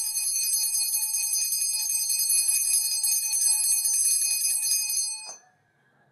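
Small hand-held bells ringing with a steady, high metallic shimmer as they are played in a Chinese ensemble with flute and erhu. The ringing cuts off suddenly about five seconds in.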